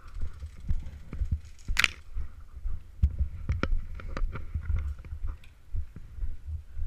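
Muffled low thuds of footsteps and body movement knocking through a head-mounted camera's waterproof case as the wearer walks, with scattered light clicks of gear and one sharper click about two seconds in.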